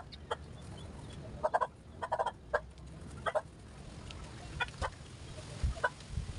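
Chickens clucking on and off, short clucks at uneven intervals.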